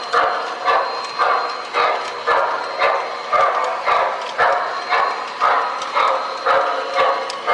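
MTH model steam locomotive's sound-system chuffing at a steady pace, about two chuffs a second, each a sharp puff that fades before the next, with a thin steady high whine underneath.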